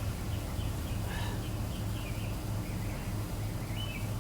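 Small birds chirping in short, quick calls, repeated throughout, over a steady low hum.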